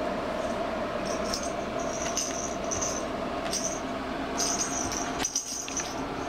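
Small bell inside a cat's jingle ball jingling in about six short bursts as the cat bats the ball around.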